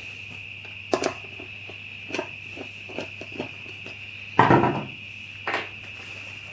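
Handling noise from a carpet-covered timber seat panel as its carpet and backing are folded and pulled back: scattered light knocks and clicks, with one louder scraping rustle about four and a half seconds in. A steady high-pitched whine runs underneath.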